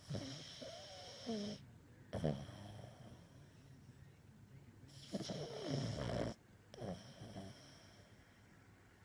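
Sleeping pug snoring in four irregular bursts, two of them over a second long, some with a whistling pitch that slides downward.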